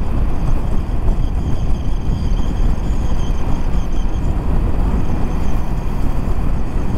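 Steady wind and road noise of a Honda CBR500R motorcycle being ridden on a wet road in light rain, the wind buffeting the helmet microphone loudest at the low end.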